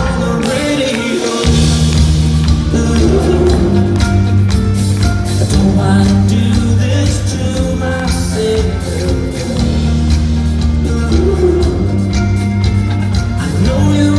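Live rock band playing loud: electric guitar, drums and bass, with singing. The bass and low drums drop out for about the first second and a half, then come back in.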